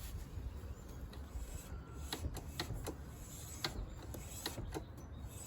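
A run of sharp, irregular mechanical clicks, starting about two seconds in.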